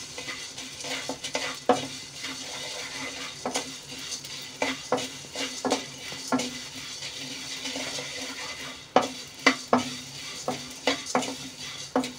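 Wooden spatula stirring and scraping in an aluminium kadhai, knocking against the metal at irregular moments, more often in the last few seconds. Under it a steady faint crackling sizzle comes from edible gum (gond) roasting and starting to puff up.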